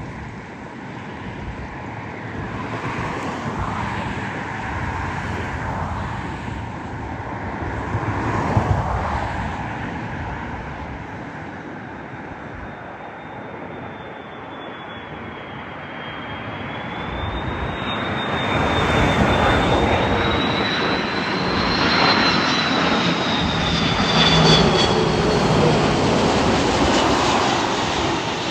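Airbus A330 airliner's jet engines heard as it passes, a broad roar with a thin high whine that rises and then falls. The noise swells to its loudest about two-thirds of the way through.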